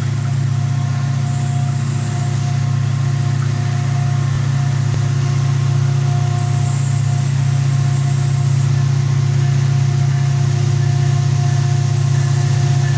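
Diesel locomotive engine of a loaded coal train working under load as it approaches, a steady deep rumble that grows slightly louder.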